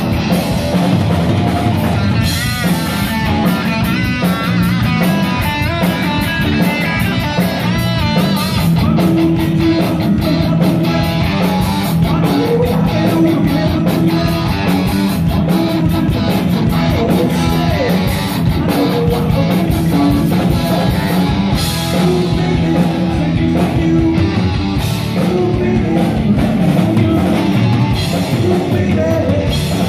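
Heavy metal band playing live: distorted electric guitar, bass guitar and a drum kit, with the singer's vocals over them.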